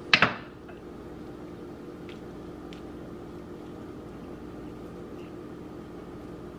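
A kitchen knife set down on a wooden cutting board, a sharp double knock, followed by a steady background hum with a few faint ticks as an avocado half is peeled by hand.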